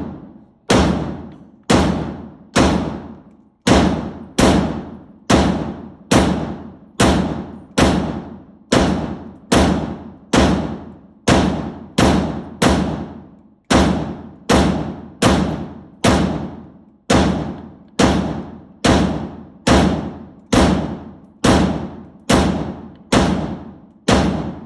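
A gun firing a long string of single shots at a steady pace, a little over one a second, about two dozen in all, each shot followed by a short echo.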